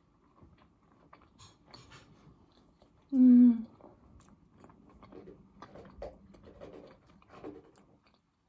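A woman chewing a mouthful of food with soft wet clicks and crunches. About three seconds in she gives one short, loud, closed-mouth hum, an 'mmm', while chewing.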